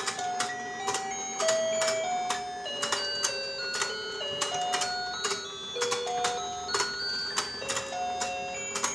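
Battery-powered rotating toy fishing game running: a tinny electronic melody of single beeping notes plays over a steady hum and regular clicking, two or three clicks a second, from its turning pond mechanism.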